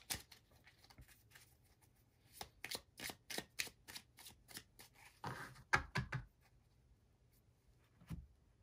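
A tarot deck being shuffled by hand: a run of quick, light card snaps, then a louder flurry of cards a little past halfway, then it stops.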